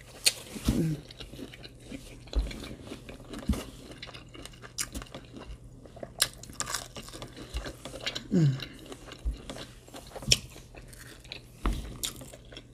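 Close-miked eating of fried tilapia: crunchy bites and chewing with scattered sharp crackles and mouth clicks. Twice, a brief falling 'mm' hum of the voice.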